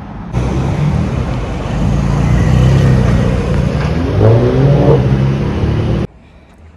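Porsche sports-car engine and exhaust running at low speed with a deep, steady rumble. One rev rises and falls about four to five seconds in. The sound cuts off suddenly near the end.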